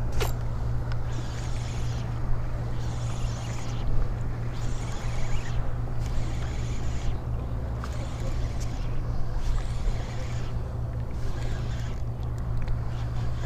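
Steady low rumble of wind and open water around a kayak, with a hiss that swells and fades every second or two and a sharp click right at the start.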